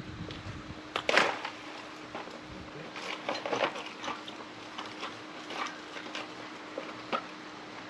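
Scattered clicks and clatter of tools and parts being handled during work on a motorcycle, loudest about a second in, with a cluster of knocks around three to four seconds and single clicks later. A faint steady hum runs underneath.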